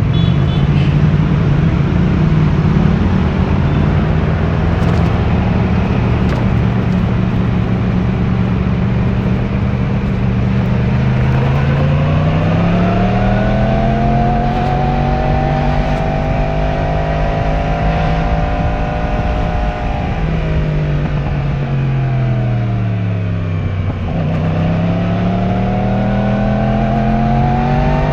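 Yamaha YZF-R1 inline-four on its stock exhaust, heard from the bike while riding: it runs at a steady pitch, climbs as the rider accelerates, holds, drops back as he rolls off, then climbs again near the end.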